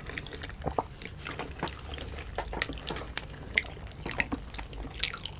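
Close-miked chewing of soft boiled food: irregular wet mouth clicks and smacks.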